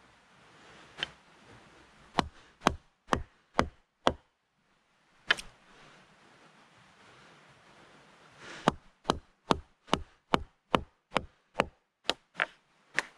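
Wood being chopped by hand with a bladed tool. There is a run of five sharp strikes about two a second and then a single strike. After a pause comes a quicker run of about ten strikes.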